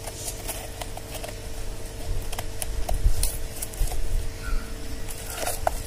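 Scattered light clicks and rustling of hands working a coconut-husk pot, pressing pieces of clay roof tile in between the husk's fibrous segments. A low rumble comes in from about two to four seconds in, under a faint steady hum.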